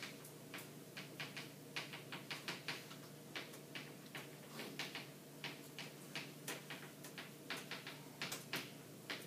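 Chalk writing on a chalkboard: a faint, irregular run of quick taps and short scratches, a few a second, as the strokes go on.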